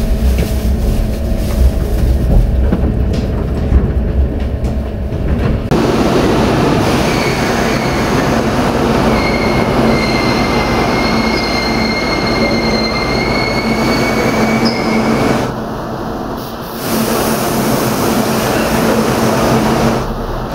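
Train running slowly on rails with a low rumble that turns suddenly louder about six seconds in; from about seven seconds a high, steady wheel squeal at two pitches sounds, fading out around fifteen seconds.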